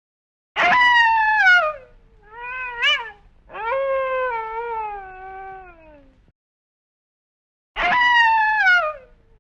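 Wolf howling in four short calls that mostly fall in pitch, the third the longest and the last near the end a repeat of the first.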